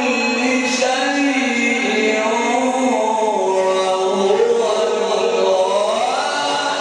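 A male Quran reciter in the melodic mujawwad style holds one long ornamented phrase in a single breath. The pitch drifts slowly downward, then climbs near the end.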